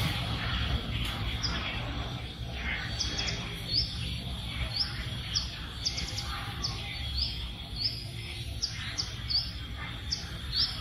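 A small bird chirping over and over, short high notes that sweep upward, about one to two a second, with a faint steady outdoor hum beneath.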